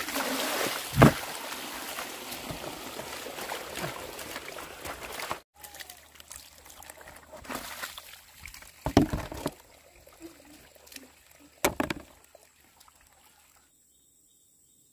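Water pouring and splashing out of a tipped plastic basin for about five seconds, with a sharp knock about a second in. Then a few separate knocks and thumps from handling a plastic barrel and hose, before it goes quiet near the end.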